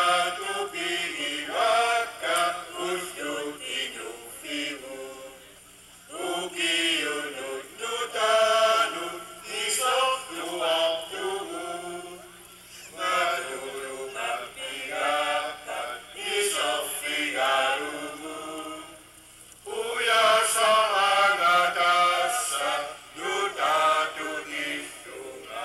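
A group of voices singing a chant together, in four phrases of about six seconds each with short breaks between them.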